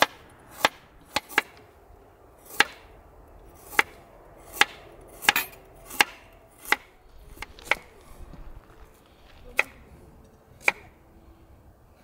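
Kitchen knife slicing a carrot into rounds on a wooden cutting board: sharp knocks of the blade striking the board, about one a second at an uneven pace.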